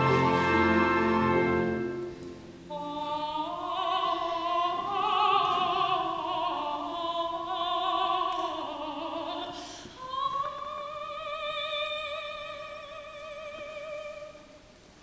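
A sustained orchestral chord dies away, then a soprano sings on alone with wide vibrato: a long wavering phrase, then a final held note that fades out near the end.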